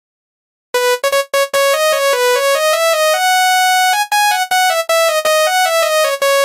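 Basuri-type electronic 'telolet' bus horn playing a quick melody of short, clipped notes, starting abruptly under a second in and holding a long note near the end.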